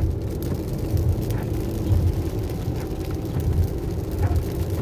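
Road noise inside a car driving on a wet highway: a steady low rumble from engine and tyres that swells about once a second, with faint ticks over it.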